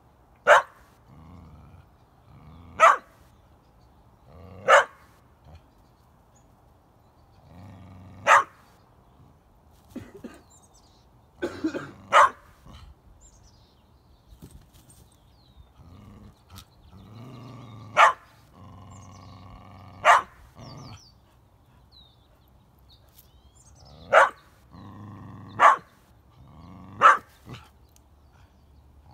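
A dog barking in single sharp barks, about ten of them a couple of seconds apart, at a goat it is trying to get to play chase.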